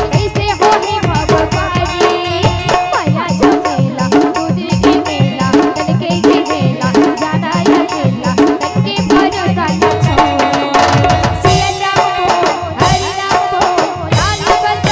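Live devotional bhajan music: harmonium held on steady notes over a fast, even dholak drum rhythm, with a woman singing into a microphone.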